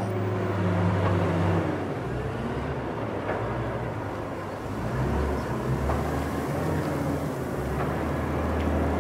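Diesel engine of a low-profile underground front-end loader running in a salt mine, a steady low hum that drops to a lower, rougher rumble about two seconds in, with a few faint knocks.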